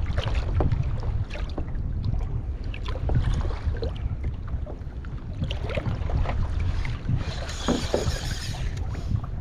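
Wind buffeting the microphone, with small waves slapping against a sea kayak's hull. A brief hiss comes about eight seconds in.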